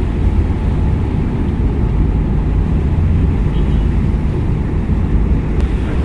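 Moored ro-ro ferry's engines running with the propellers still turning, a steady low drone over the wash of churned water at the stern.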